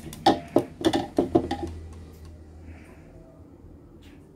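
Hard plastic parts of an Oxone OX-875N slow juicer clicking and knocking as the mesh strainer and its frame are twisted and lifted out of the juice bowl: about seven sharp clicks in the first second and a half, then quieter handling.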